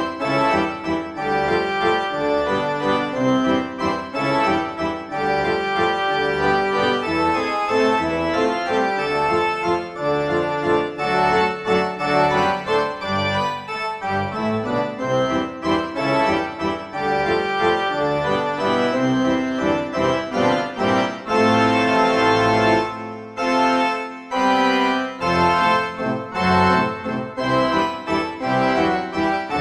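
Instrumental background music, a continuous run of pitched notes.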